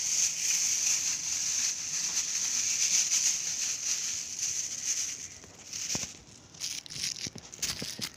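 A plastic bag being handled, rustling and crinkling steadily for about five seconds, then a few separate crinkles.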